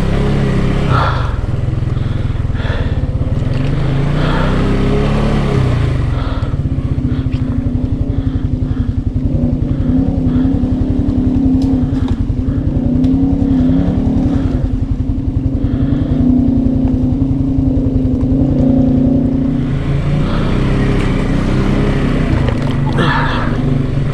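Can-Am Outlander 700 ATV engine running under way, its pitch rising and falling as the throttle is worked.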